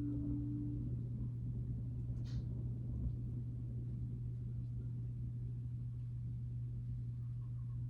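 A steady low synthesizer drone, with a held higher note that stops about a second in and a brief hiss a little after two seconds.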